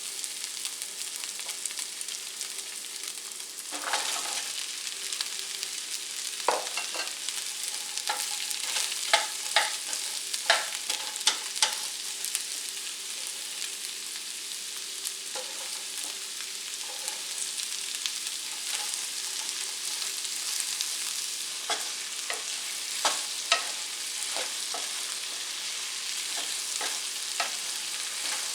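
Sliced onion frying in hot oil in a skillet: a steady sizzle, with frequent sharp clicks and scrapes as a utensil stirs against the pan.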